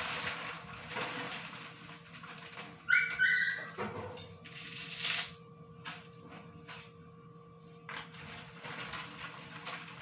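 Two short, high-pitched squeals in quick succession about three seconds in, amid kitchen clatter and a faint steady hum.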